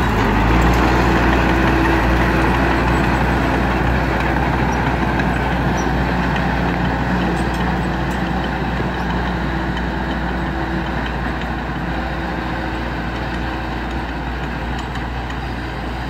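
Small Komatsu crawler bulldozer's diesel engine running steadily as the machine drives away, slowly growing fainter.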